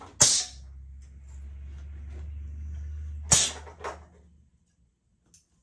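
Industrial cylinder-bed sewing machine with a pneumatic presser-foot lift: a sharp air hiss from the foot lift, then the machine runs with a steady low hum for about three seconds, then another loud hiss and a smaller one as the foot lifts again.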